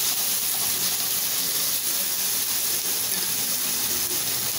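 Sliced carrots, beans, capsicum and onion sizzling steadily in hot oil in a steel kadai as they are sautéed.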